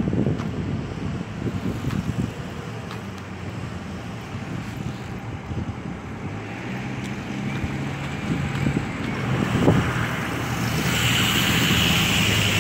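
Wind buffeting the phone's microphone over a steady low motor hum, with a broad hiss swelling up about ten seconds in.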